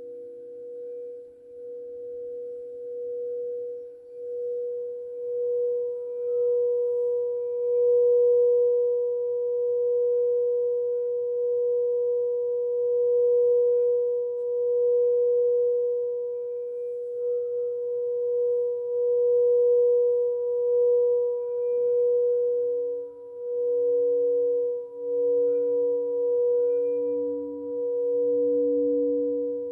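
Small frosted quartz crystal singing bowl, the crown-chakra bowl tuned to B, sung by circling a mallet round its rim. It gives one steady, pure tone that swells in and pulses gently in loudness, with a faint overtone an octave up. About two-thirds of the way in, a larger crystal bowl joins with a lower tone that also pulses.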